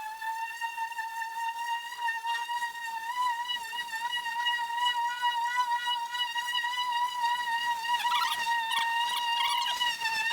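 Electric sander running steadily with a high whine while sanding plywood, with a few short scratchy bursts near the end.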